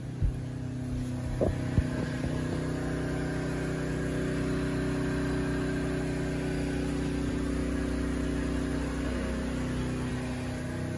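Flojet Premium Quad 12-volt diaphragm water pump running steadily, kicked on by an opened tap, with a steady hum; a few knocks in the first two seconds.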